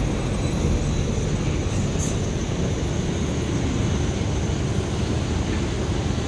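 Mercedes-Benz 1526 coach's rear-mounted diesel engine running steadily as the bus moves slowly past, a low, even engine drone.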